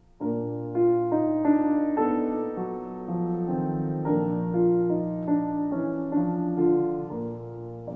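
Background solo piano music, a slow classical piece: after the last phrase dies away, a new phrase of single notes and chords begins just after the start and carries on.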